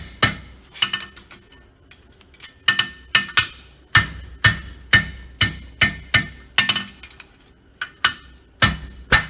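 Hand hammer striking a hot steel bar shoe on an anvil, about two blows a second, each with a short metallic ring from the anvil. There is a lull of about a second and a half early on. The blows flatten the shoe and bring its two ends together.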